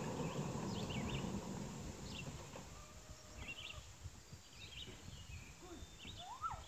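Faint outdoor ambience of small birds chirping, with short high calls every second or so. A low rumble fades out over the first two seconds.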